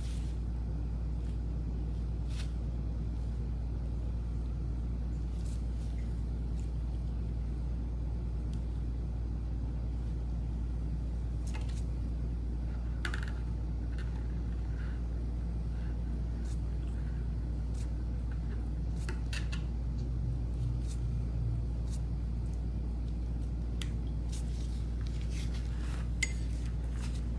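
A steady low hum with faint, scattered light clicks and taps.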